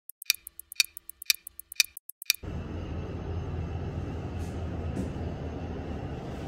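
A clock-ticking sound effect: a loud tick about every half second with lighter ticks between, five loud ones in all, which stops suddenly about two and a half seconds in. A steady low hum and rumble of a lift car in motion follows.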